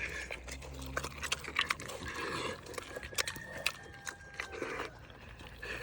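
Pigs chewing and smacking on food with their mouths open: irregular wet crunches and smacks.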